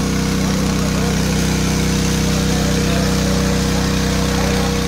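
Motor-driven water pump running steadily, pumping out the water.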